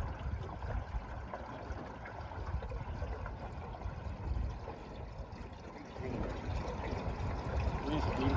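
Water lapping and trickling against a small metal boat on choppy lake water, with a low rumble underneath; it grows a little louder about six seconds in.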